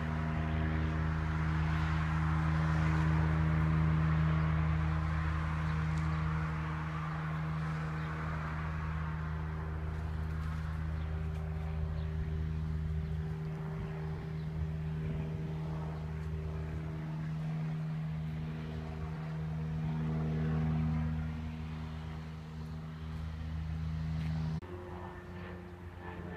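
Piston engine and propeller of a light tow plane droning steadily overhead while it tows a glider; the drone swells and eases a little, then shifts abruptly to a different pitch near the end.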